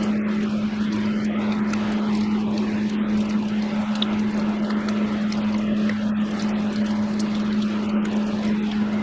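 A steady machine drone with a constant, unchanging hum.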